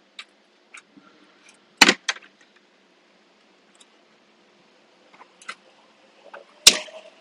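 Plastic trim clips of a Tesla Model 3 dashboard end panel snapping loose as a plastic pry tool levers the panel off. Two sharp clicks, about two seconds in and near the end, with lighter ticks between.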